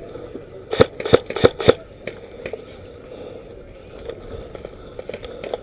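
Airsoft rifle fired four times in quick succession about a second in, sharp clicking shots, followed by a few fainter clicks.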